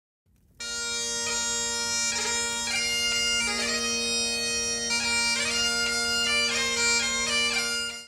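Bagpipe music: a steady drone under a changing chanter melody, coming in just after half a second and cutting off suddenly near the end.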